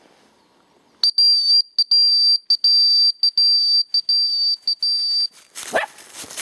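Dog-training whistle blown in a run of short, high, steady-pitched blasts for about four seconds, starting about a second in: a recall signal. A brief rising squeak follows near the end.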